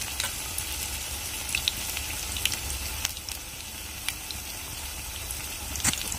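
Batter-coated bitter gourds deep-frying in hot oil in a frying pan: a steady sizzle with frequent crackles and pops, the loudest pops near the end.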